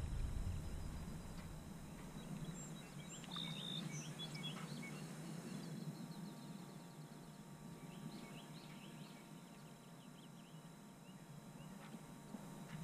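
Faint pond-side outdoor ambience: a low rumble that eases off after the first few seconds, with scattered short bird chirps.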